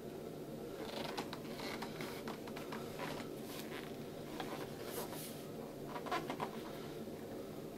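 Hands turning and handling a hard Shoretrooper replica helmet, giving scattered small clicks, taps and rubbing noises over a steady low hum.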